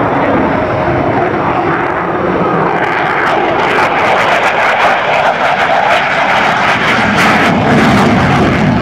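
F-16 Fighting Falcon fighter jet flying past with its single jet engine running loud. The steady rumble turns rough and crackling from about three seconds in.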